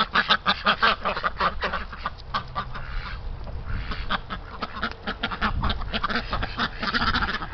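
A flock of domestic ducks, Pekins among them, quacking in quick runs, loudest over the first two seconds and again near the end. Wind rumbles on the microphone through the middle.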